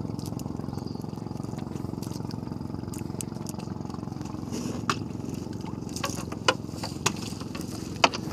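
Small boat engine running steadily at a constant speed, with a fast, even pulsing. A few sharp knocks and clicks sound over it in the second half.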